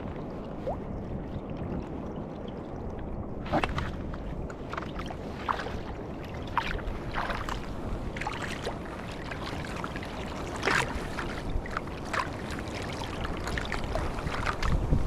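Water splashing and lapping around a sea kayak paddled slowly through waves, with irregular short splashes of the paddle blade every second or so over a steady low rush of water and wind.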